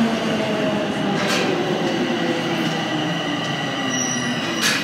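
Bombardier Toronto Rocket subway train pulling into the station and slowing to a stop, its whine falling steadily in pitch over the rumble of the wheels. Two short hisses come through, one about a second in and one near the end.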